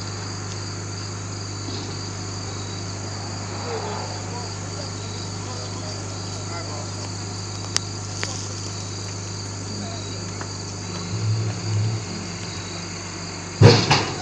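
Crickets chirring steadily over a steady low engine drone, with a small click about eight seconds in and a sudden loud clunk near the end.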